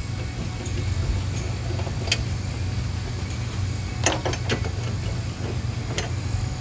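Steady low rumble in the background with a few short, light clicks of small bolts and hardware being handled and threaded by hand.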